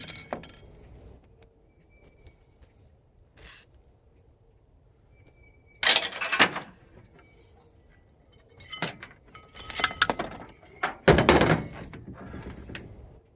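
Pieces of scrap metal being handled and tossed together: a series of metallic clanks and rattles, some ringing briefly, the loudest about six seconds in and again near eleven seconds.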